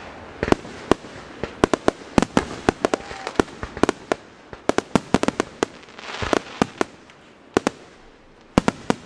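Aerial fireworks shells bursting in a rapid, irregular string of sharp bangs, densest in the first two-thirds, with a brief rushing swell about six seconds in.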